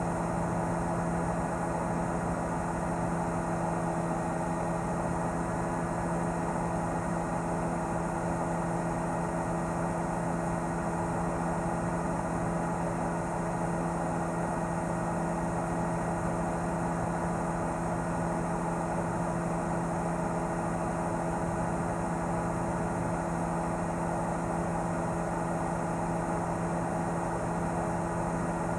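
A news helicopter's engine and rotors heard from on board: a steady, unchanging drone with a few constant humming tones.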